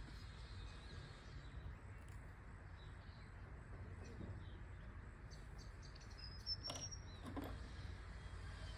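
Faint steady background hum with a couple of short, high bird chirps and a soft click about six and a half seconds in.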